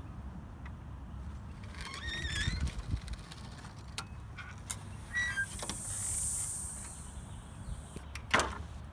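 Wooden picket gate squeaking as it is pushed open, then pulled shut by a pneumatic screen-door closer with a brief hiss of air, and latching with a single sharp clack near the end.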